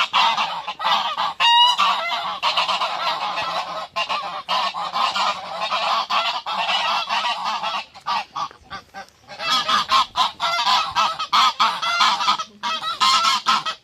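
A flock of farm poultry calling loudly over one another in a continuous clamour, with a short lull about eight seconds in.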